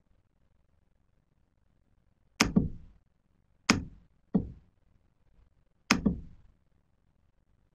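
Four sharp knocks, each dying away over about half a second; the second and third come close together, under a second apart.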